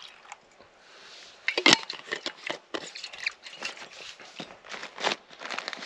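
Handling noises as a stainless steel vacuum flask is closed: a sharp click a little under two seconds in, then a run of lighter clicks and crinkles.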